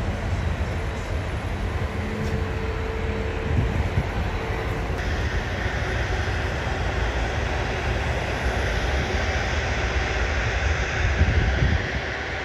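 Steady road and vehicle engine noise. From about five seconds in, a louder rushing sound of a jet airliner passing overhead swells in.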